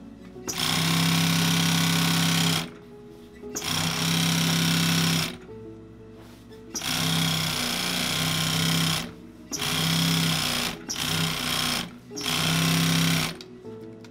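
Industrial sewing machine stitching black leather in short runs, about six bursts of one to two seconds each with brief stops between them, as the operator repositions the panel.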